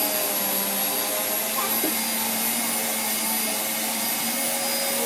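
Vacuum cleaner running steadily: an even rushing of air over a constant low hum and a thin high-pitched whine.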